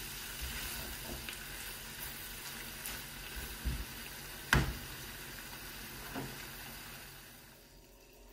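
Diced chicken breast, peppers and onion sizzling in a non-stick frying pan as a silicone spatula stirs them, with a few knocks of the spatula against the pan, the loudest about four and a half seconds in. The sizzling fades near the end.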